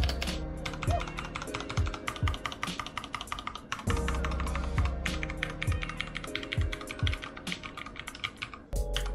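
Rapid typing on an ASUS ROG Falchion 65% mechanical keyboard with Cherry MX Red linear switches: a dense, uneven run of keystroke clicks. Background music with a bass beat plays underneath.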